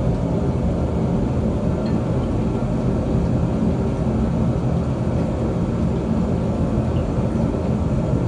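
Steady low roar of a running forge, even in level throughout, with no hammer blows.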